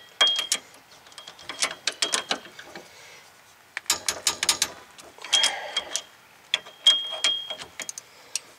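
Metal hand tools and sockets clinking and clicking in several quick runs of sharp metallic clicks, some with a brief ring.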